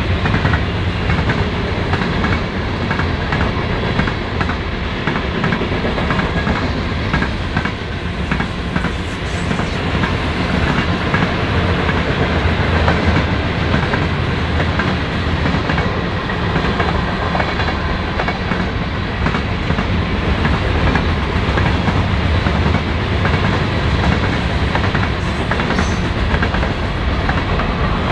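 Freight train's cars rolling past at speed, mostly covered hoppers: a steady heavy rumble with rapid clicking of the wheels on the rails.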